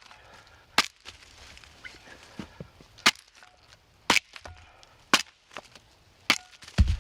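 Axe blade chopping into a log: about five sharp strikes roughly a second apart, as the log face is hewn with swung blows. A heavy low thud comes near the end.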